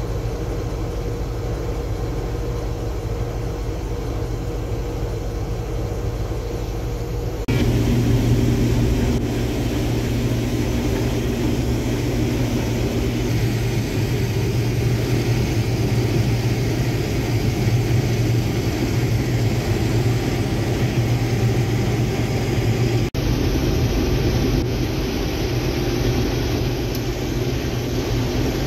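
Case IH Axial-Flow combine running steadily, a continuous engine and machinery hum, first heard from the cab while its unloading auger empties corn into a truck. The sound steps up abruptly, becoming louder with a deeper hum, about a third of the way in, and changes again near the end to the cab sound of the combine harvesting corn.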